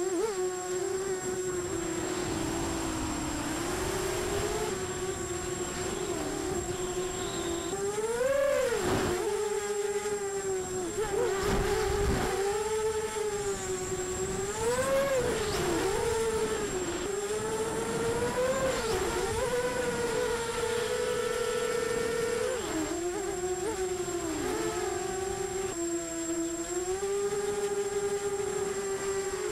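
Brushless motors of an Emax Nighthawk 250 FPV quadcopter whining in flight, the pitch swooping up and down again and again with the throttle. Rushes of wind noise come about nine and twelve seconds in, and a steady thin high tone sits above the motors.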